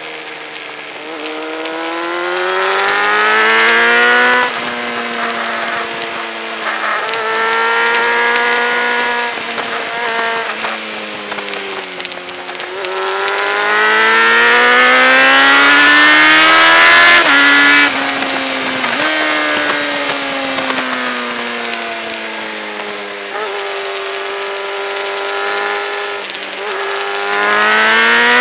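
Onboard motorcycle engine at racing speed, its pitch climbing hard through the gears and dropping sharply at each change, then falling away as the bike slows for corners, with wind rush over the microphone.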